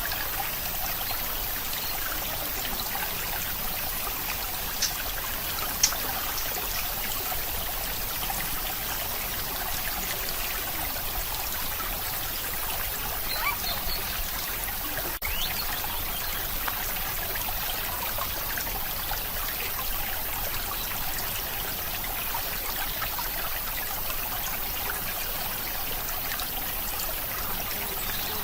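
Steady hiss-like rushing noise, with two sharp clicks about five and six seconds in.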